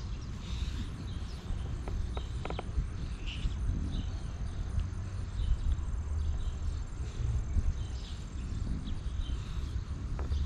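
Outdoor yard ambience: a faint steady high insect drone over low wind rumble on the microphone, with scattered small rustles and clicks.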